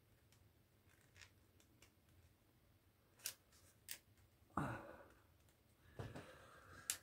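Near silence broken by a few faint clicks and short scrapes of thin plastic as a fingernail works at a clip on a small drone's shell, starting about three seconds in.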